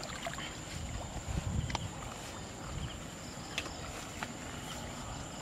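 Low rumble of wind on the microphone with light rustling and scattered soft clicks of footsteps through tall grass.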